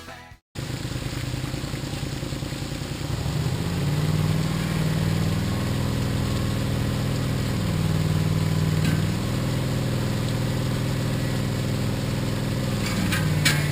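Engine of a Dingo compact utility loader running, getting louder about three seconds in, its note shifting up and down a few times. A few light clicks near the end.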